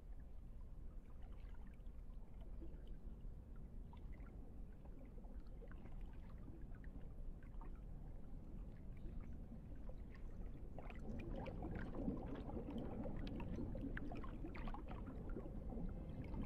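Faint water trickling and sloshing over a low rumble. The small drips and splashes grow busier and a little louder from about eleven seconds in.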